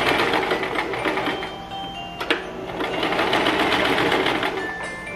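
Electric sewing machine stitching through thick cord, in two runs with a short stop and a sharp click between them about two seconds in.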